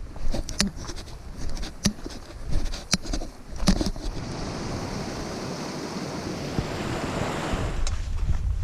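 Wind rumbling on the microphone, with several sharp knocks in the first few seconds. Then a steady rushing hiss for about four seconds that stops near the end.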